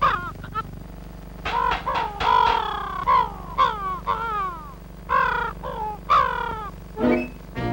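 Cartoon bird calls: a dozen or so quick chirps in a row, each sliding down in pitch.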